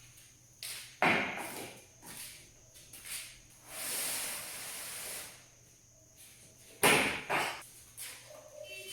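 A series of hard knocks and thuds, the loudest about a second in and another near the end, with a rushing, sliding hiss of about a second and a half in between.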